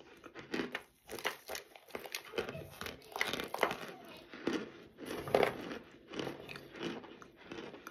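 Mouthfuls of dry cornstarch being bitten and chewed close to the microphone: irregular squeaky crunches, several a second, with one louder crunch about five and a half seconds in.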